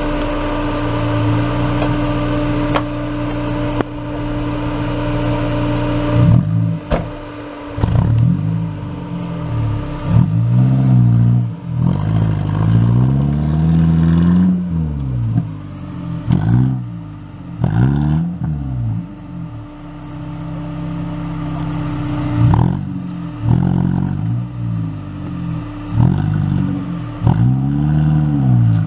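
An off-road 4x4's engine running steadily, then revved again and again from about six seconds in, each rev rising and falling in pitch, as the vehicle works through the course.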